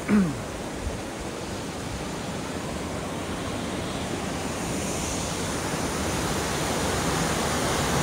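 The Grey Mare's Tail waterfall rushing in a steady roar of falling water, slowly growing louder toward the end.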